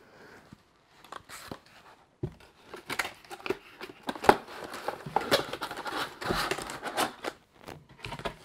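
Cardboard box and cardboard inserts being handled and folded shut: a dull knock about two seconds in, then a busy run of scraping, rustling and tapping.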